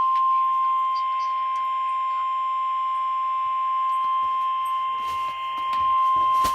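NOAA Weather Radio's 1050 Hz warning alarm tone: one steady, unbroken high-pitched tone that starts suddenly. It is the attention signal that announces an emergency alert, here a severe thunderstorm warning.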